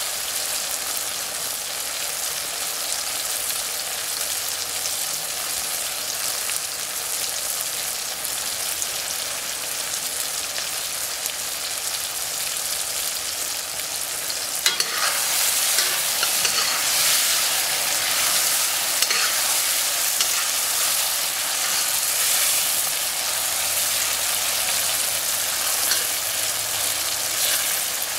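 Sausage slices, pepper rings and tomato sizzling in oil in a wok, a steady frying hiss. About halfway through, a metal spatula starts stirring with a sharp clink, and the sizzle grows louder and brighter, with scattered scrapes and clicks against the wok.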